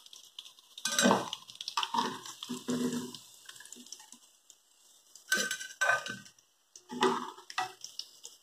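Metal spoon knocking and scraping against the rim and sides of an aluminium pot as fried pumpkin fritters are lifted out of the oil, in several separate bouts of clatter.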